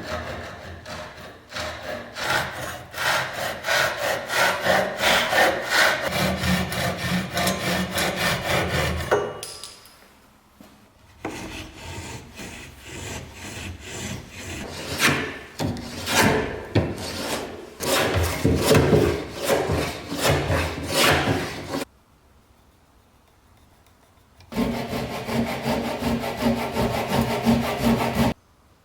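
Rapid back-and-forth strokes of a hand tool working wood, in three spells separated by short pauses.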